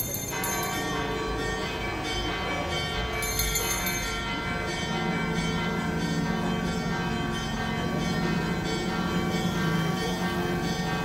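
Church bells ringing in a steady series of strokes, their tones overlapping and hanging on.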